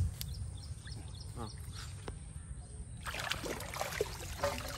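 Pond water splashing and trickling as a pipe is lifted and a hand net is scooped at its mouth; the splashing gets busier about three seconds in.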